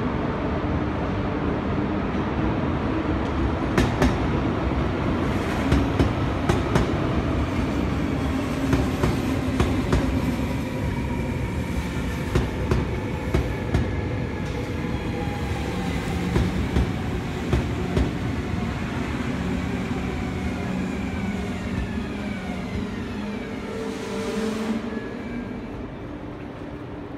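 Electric locomotive pulling a passenger train out of the station: a steady rumble with bursts of wheel clicks as the train rolls over rail joints and points, slowly fading. Toward the end, falling electric whines from a second electric train running in on the next track.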